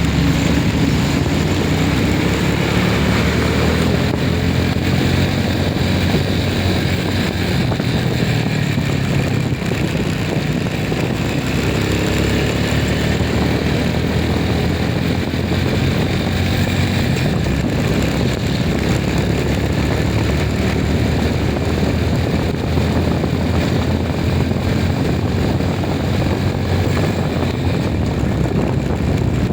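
A motor vehicle on the move: its engine runs steadily, with slow small changes in pitch, over road and wind noise.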